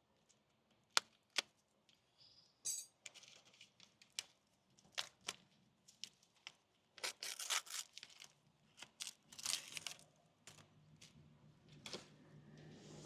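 New brake pads and their packaging being handled: two sharp metal clicks about a second in, then several bursts of rustling and tearing.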